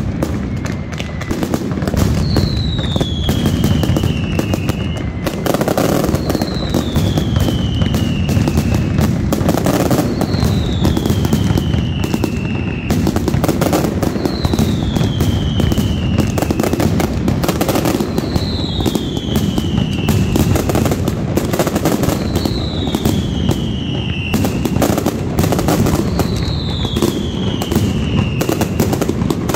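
Mascletà firecrackers going off in a dense, continuous barrage of rapid bangs. A falling whistle recurs over the bangs about every four seconds.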